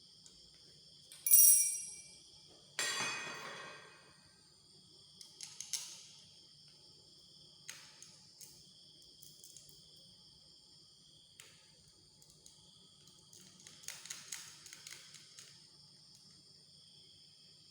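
Two metal objects being knocked or set down: a sharp, high ringing ping, then a louder clang that rings and fades over about a second. Light clicks and rattles follow, over the steady chirping of crickets.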